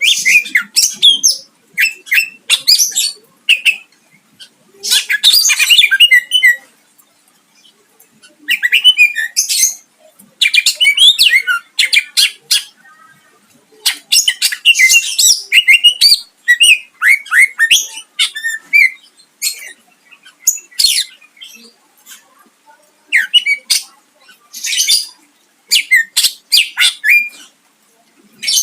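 Greater green leafbird (cucak ijo) singing a loud, varied song in bursts of rapid high-pitched phrases and sharp notes, each burst one to two seconds long with short pauses between. The phrases are its 'isian', songs mimicked from other birds.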